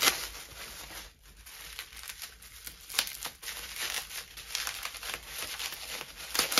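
Bubble wrap and packing tape crinkling and tearing as a package is unwrapped by hand, with a few sharper crackles.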